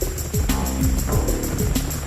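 Background music with a steady beat of deep drum hits, each dropping quickly in pitch, over held tones.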